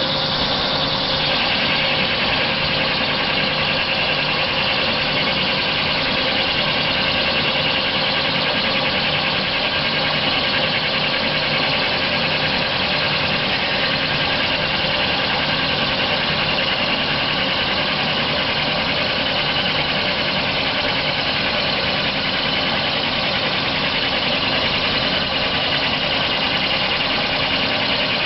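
CNC lathe boring a spinning Teflon (PTFE) cylinder with a carbide-insert boring bar: a steady machine hum with a constant high whine as the bar feeds into the bore.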